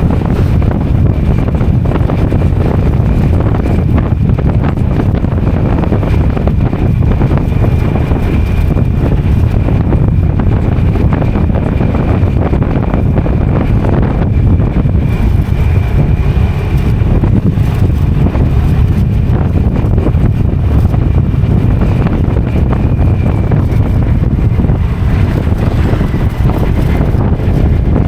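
Motorcycle riding along a road: the engine running and heavy wind buffeting on the microphone make a steady low rumble, with a faint steady high whine above it.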